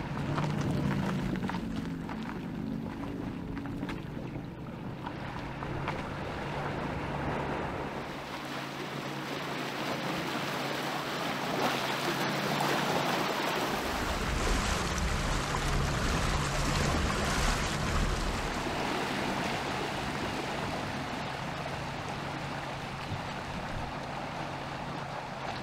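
Electric Porsche Macan driving: a rushing noise of tyres and wind with a faint steady low hum, swelling louder for several seconds around the middle.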